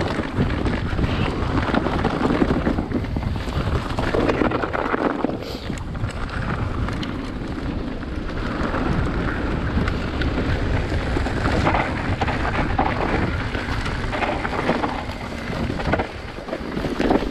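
Mountain bike riding a trail, heard from the bike or rider: a constant rumble of wind on the microphone and tyres on the ground, broken by frequent small knocks and rattles over bumps.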